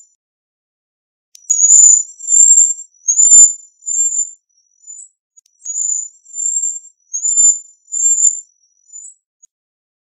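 Cedar waxwing giving its thin, high-pitched, slightly buzzy 'sree' calls: about ten short notes in a string, starting about a second and a half in and growing fainter toward the end.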